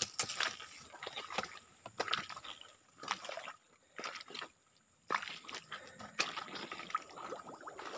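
Irregular footsteps squelching and sloshing through wet mud and shallow water, with a short quiet pause a little past the middle.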